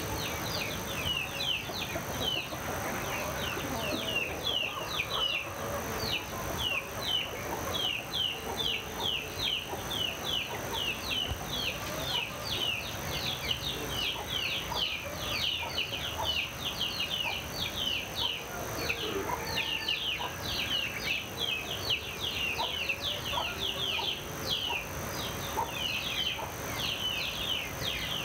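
A chorus of small songbirds chirping without a break, many short falling chirps overlapping, with chickens clucking underneath.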